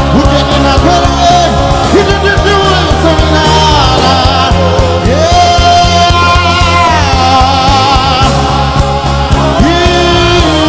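Live worship music: a band plays a steady bed while a singer holds long, wavering notes, one long held note rising into place about five seconds in.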